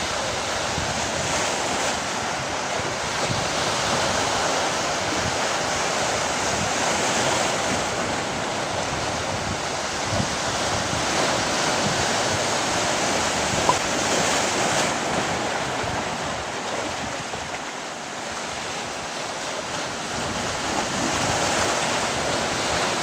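Sea waves washing ashore, a steady rushing that slowly rises and falls, with wind buffeting the microphone.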